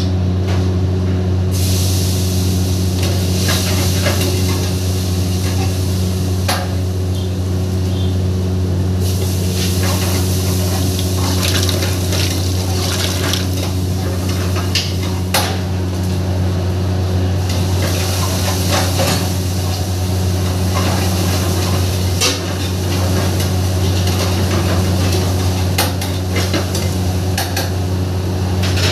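Wok cooking on gas burners: a steady loud low hum under a continuous frying hiss, with a steel ladle scraping and clanking against black iron woks many times.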